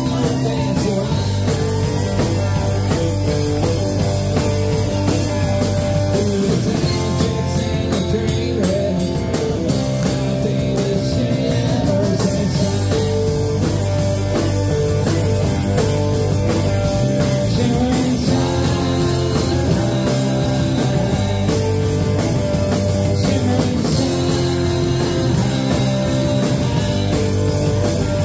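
Live rock band playing a song: electric guitars and an acoustic guitar over a driving drum kit, steady and loud throughout.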